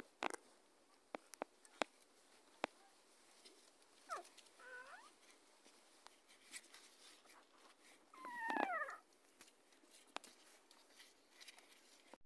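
Newborn puppies whimpering while nursing. A short, high squeak rises and falls about four seconds in, and a louder whine comes about eight seconds in, with scattered faint clicks between them.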